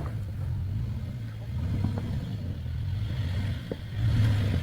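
Car running, a steady low engine and road rumble that swells a little about four seconds in.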